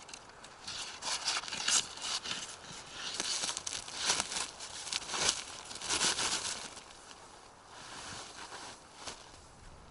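Plastic tarp crinkling and snow crunching as a dead branch is laid along the tarp's edge and pressed down into the snow: a run of irregular rustles and scrapes, louder for the first six seconds or so, then quieter.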